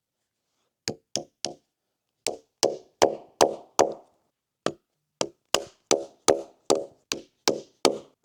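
Repeated hammer or mallet blows on wood, sharp knocks about two to three a second, each with a short ring, pausing briefly twice.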